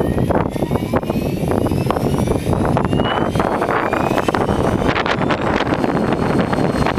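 Align T-Rex 600EFL Pro electric RC helicopter, its motor and rotor whine rising slowly in pitch as it spools up, under heavy wind buffeting on the microphone.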